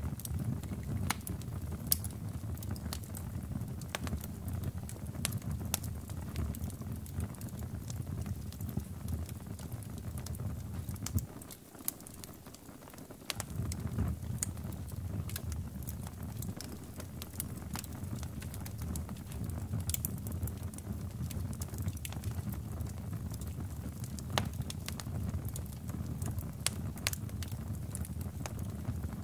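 Melted plastic of a mini fan burning in small flames, crackling with irregular sharp pops over a steady low rumble; the rumble drops away for about two seconds near the middle.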